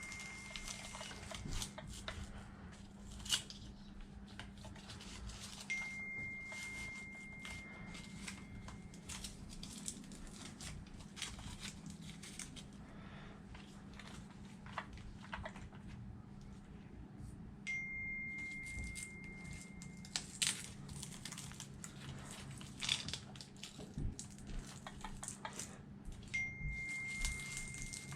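Small clicks and rustles of hands handling batteries and wires in an RC car chassis, over a low steady hum. A phone's high, steady notification beep sounds three times, each lasting two to three seconds, for a stream of incoming texts.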